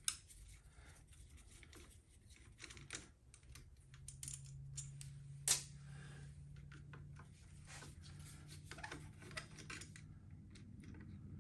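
Faint, scattered clicks and taps of a small hand tool and metal parts being worked at a motorcycle's handlebar controls, with one sharper click about five and a half seconds in. A low steady hum comes in about four seconds in.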